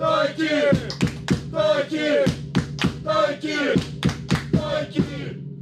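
Football supporters' call: voices shouting the player's name 'Taiki' (タイキ), each shout followed by three sharp beats. The pattern repeats roughly every second and a half, then fades out near the end.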